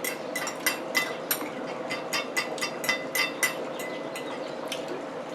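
Quick run of metal-on-dish clinks, about three a second, thinning out after about three and a half seconds, over a steady hum.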